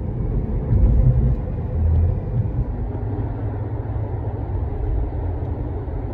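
Steady low road and engine rumble inside the cabin of a moving Toyota car, with a couple of louder low thumps about one and two seconds in.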